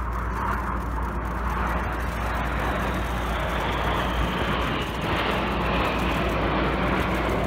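Jet noise from a formation of BAE Hawk T1 jets flying past overhead: a steady rushing sound that grows slightly louder.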